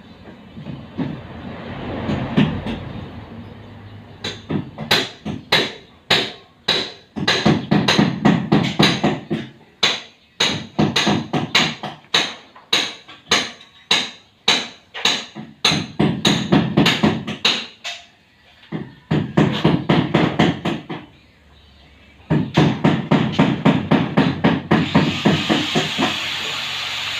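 Hammer blows struck in quick runs of about three a second, each strike ringing briefly, with short pauses between runs. A steady rasping noise comes in near the end.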